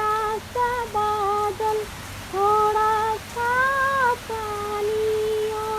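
A woman's voice singing a slow melody without words, in long held notes with short breaths between, over a steady hiss of rain.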